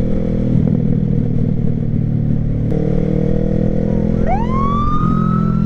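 Sport motorcycle engine running hard at speed, its note shifting once about halfway through. About four seconds in, a police siren starts up behind it with a fast rising wail that keeps climbing slowly.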